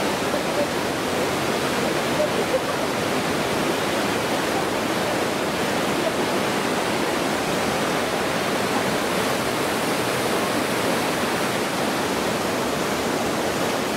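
Mountain river rushing over rocks as white-water rapids, a steady, even rush of water.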